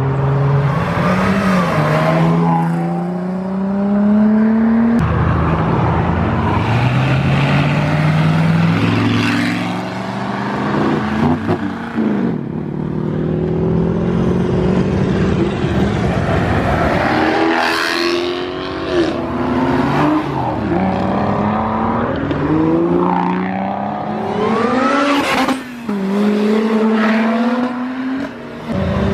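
A run of performance cars accelerating hard away one after another. Their engine notes rise in pitch and drop back again and again as they change up.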